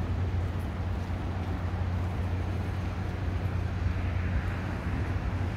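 Steady road traffic noise with a low rumble from passing cars.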